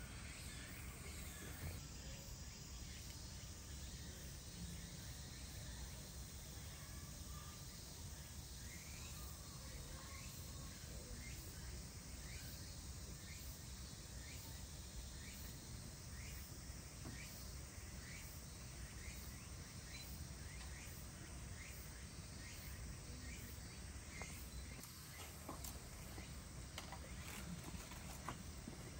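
Quiet outdoor ambience: a steady background hiss with many short, faint chirps scattered through it.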